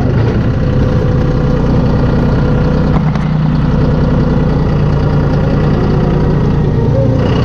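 Engine running steadily at idle with a low, even hum, cut off abruptly at the end.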